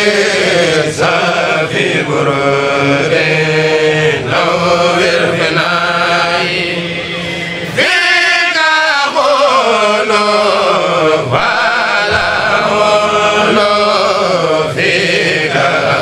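A Mouride kourel group chanting a khassida, Arabic devotional poetry, in long sustained phrases. A little before halfway, a new phrase opens with a long falling slide in pitch.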